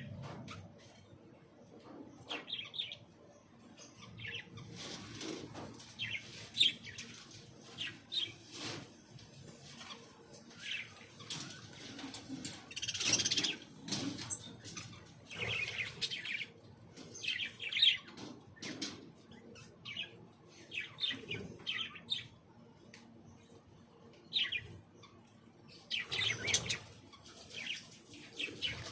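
Aviary birds chirping in short, scattered calls, with a few brief flutters of wings.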